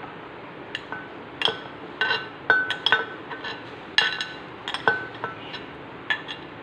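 Boiled chickpeas being added to a glass blender jug: irregular sharp clinks on the glass, about a dozen, several ringing briefly.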